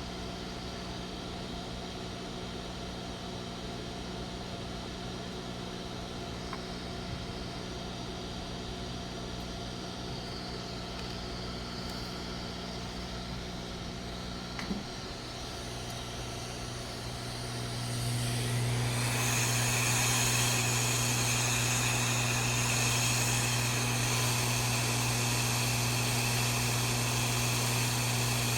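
Steady small-motor hum with a low drone and a single click near the middle. About two-thirds of the way through it grows louder, and a rushing, airflow-like hiss joins it.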